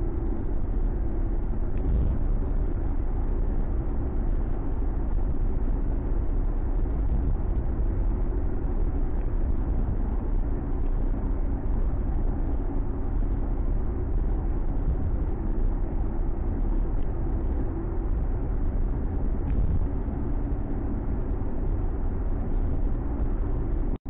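Steady road and engine noise heard inside a Ford Mustang's cabin while driving, a low rumble with a faint engine hum.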